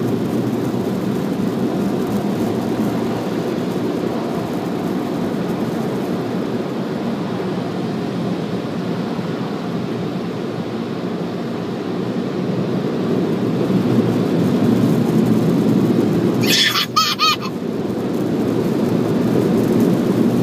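Automatic car-wash air dryers blowing on the car, heard from inside the cabin as a steady low rush of air: the "big wind" drying stage of the wash.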